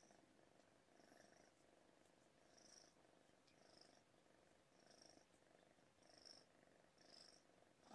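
A kitten purring faintly while being stroked, the purr swelling and fading about once a second with each breath in and out.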